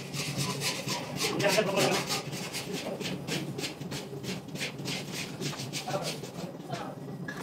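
Stainless-steel sweet-dough forming machine running: a steady motor hum under a rapid, even scraping clatter of about three or four strokes a second.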